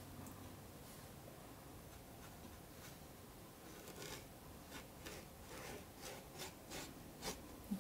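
Faint brush strokes on watercolor paper: a paintbrush rubbing and scratching lightly across the paper in short, irregular strokes, more frequent in the second half.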